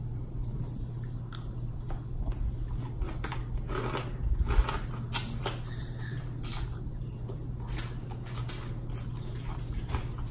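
Close-miked eating: a person biting and chewing shrimp held in the fingers, with scattered short mouth clicks and smacks, loudest about four to five seconds in. A steady low hum runs underneath.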